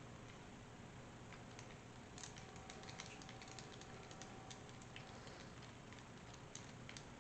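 Faint, irregular light clicks and ticks of a screwdriver and small metal deadbolt parts being handled while the screw holding the lock cylinder is taken out.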